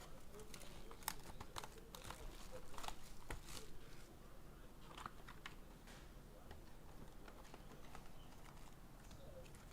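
Trading card box and pack wrappers being handled and opened, with faint crinkling and crackling that is busiest in the first four seconds and sparser afterwards.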